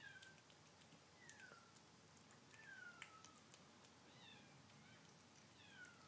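A mother cat meowing outside, heard faintly: about five short, falling calls, one every second and a half or so.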